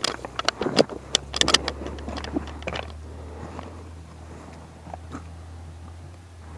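Handling noise: a quick run of sharp clicks and rattles for the first three seconds as a caught smallmouth bass and a flashlight are handled, then only a steady low hum.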